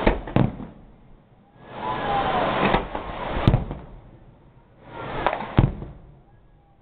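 Fireworks display: sharp bangs, about four of them, among swells of rushing, crackling noise that build and fade about every three seconds.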